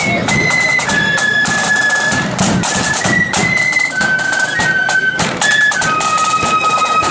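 Marching flute band playing a tune: flutes carry a single high melody of held notes over rapid snare drum rolls and the beat of a big bass drum.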